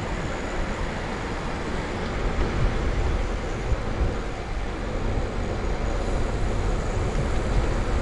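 Steady rushing noise of a bicycle ride: wind buffeting the microphone, with tyres rolling on the street.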